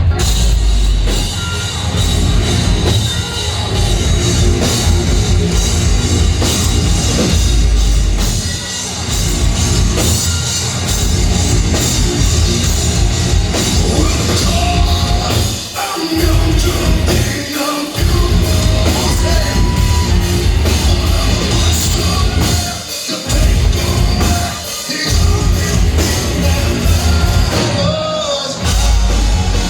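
A heavy metal band playing live: drum kit, heavy guitars and sung vocals, loud throughout. In the second half the whole band stops short several times, each break only a fraction of a second.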